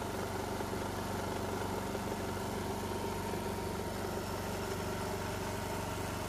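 Small petrol engine of a portable high-pressure washer running steadily after being started, an even hum with no change in speed.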